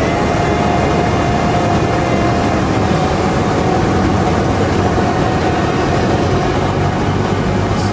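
Cessna 172's piston engine and propeller droning steadily as heard inside the cockpit, with airflow noise over it.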